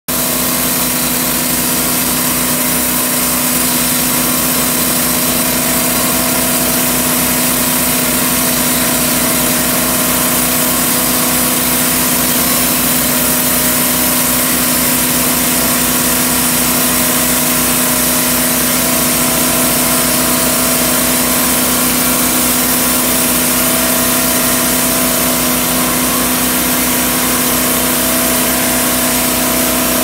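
TimberKing B-20 band sawmill running steadily: its engine holds an even speed with a high hiss over the motor as the saw head feeds slowly along a log, cutting a board.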